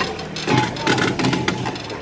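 Excavator engine running under the clatter and crash of broken concrete and brick debris as a house is demolished.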